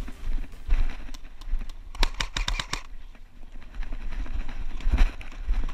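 Low buffeting and thumps from wind and footsteps on a body-worn camera moving through dry grass, with a quick run of sharp clicks about two seconds in.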